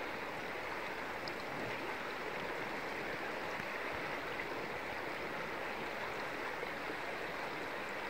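Steady rush of flowing river water, an even hiss without pulses or changes.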